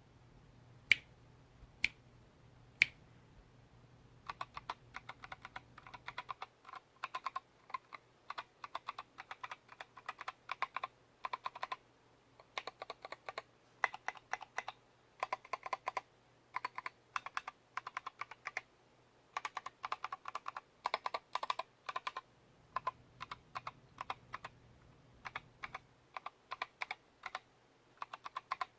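Mechanical keyboard with Kailh BOX Royal tactile switches (lubed springs), SA sculpted keycaps and shelf-liner dampening under the PCB, being typed on. Three single sharp keystrokes about a second apart come first, then steady typing in runs with short pauses from about four seconds in. A faint low hum sits underneath.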